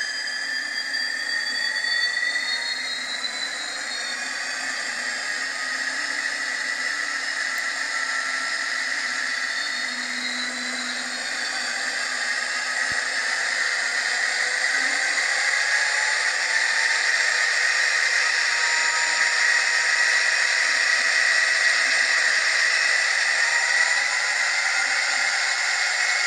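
Hornby TTS sound decoder in an N gauge Class 66 model playing its diesel engine sound through the model's tiny speaker: a thin, hissy engine drone with whining tones gliding up and down. It grows a little louder about halfway through.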